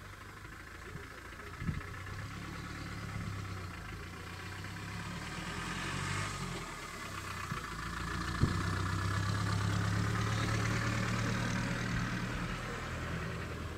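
A safari vehicle's engine idling with a steady low hum that grows a little louder partway through, and a couple of sharp clicks.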